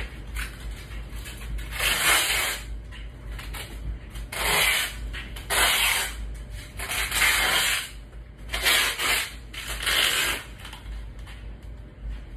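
About six short bursts of scratchy rubbing noise, each lasting up to a second, spaced a second or two apart.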